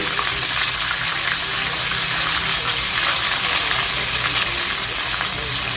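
Chicken pieces frying in hot canola oil, with a steady sizzle.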